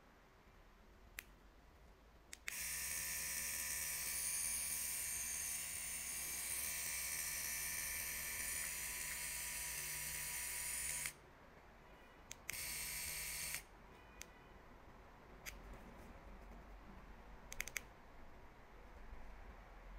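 Wireless pen tattoo machine with its stroke set at 4.2 mm. After a couple of button clicks, its motor runs steadily for about eight seconds and stops. It runs again for about a second, and then come several light button clicks, with a quick cluster of them near the end.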